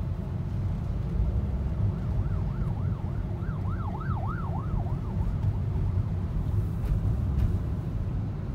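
Ambulance siren in a fast rising-and-falling yelp, growing louder from about two seconds in, loudest about four seconds in, then fading out a second or so later. Under it runs the steady low rumble of the car's engine and road noise, heard from inside the cabin.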